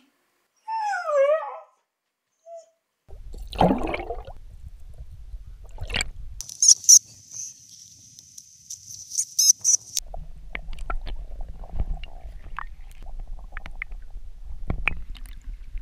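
A Siberian husky's short "talking" vocalization, a wavering whine that rises and falls in pitch for about a second. Then wind on the microphone, with rustling and scattered sharp clicks in dry grass as the husky noses about hunting voles.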